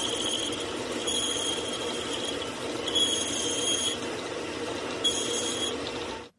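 Metal lathe boring the end of a Hino FM truck gearbox main shaft: the machine runs steadily while the cutting tool squeals against the steel in four high-pitched bursts of about a second each. The sound cuts off suddenly near the end.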